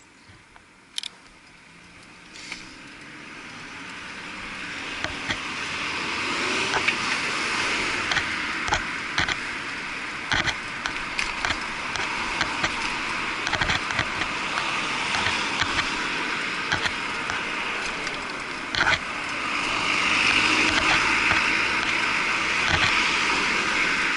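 Muffled riding noise picked up by an action camera sealed in a waterproof housing on a moving bicycle. A rushing noise builds over the first few seconds as the bike gets going, then stays up, with frequent sharp clicks and rattles from the bike and camera mount over bumps.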